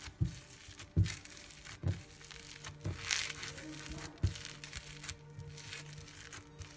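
Crunchy slime being squeezed and pressed, crackling and crinkling in irregular bursts with a few soft low thumps. Background music plays underneath.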